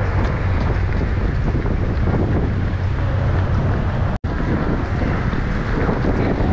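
Wind buffeting the microphone: a loud, steady rumbling noise with no clear events, cutting out for an instant about four seconds in.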